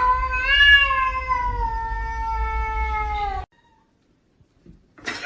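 A cat giving one long, drawn-out yowl that rises quickly at the start and then slowly sinks in pitch for about three and a half seconds. It breaks off abruptly, followed by near silence with a few faint clicks.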